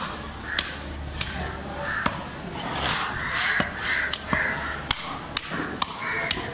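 Heavy cleaver chopping Indo-Pacific sailfish into pieces on a wooden log chopping block: about ten sharp knocks, unevenly spaced, as the blade cuts through the fish and strikes the wood.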